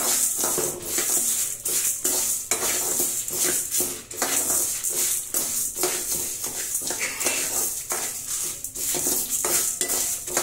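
A steel spoon scrapes and clinks against an aluminium kadai, stirring black urad dal and whole dried red chillies as they dry-roast. The strokes come roughly twice a second over a steady hiss.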